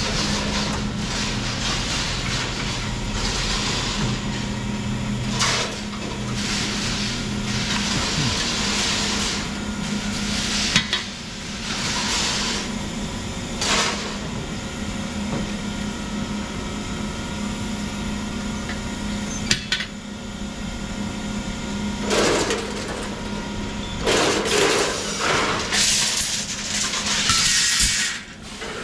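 Steel rebar being cut on a shear and the cut bars dropping into a metal rack bay: repeated metallic clattering and clanging over the steady hum of the shear's motor, with the loudest bursts in the second half.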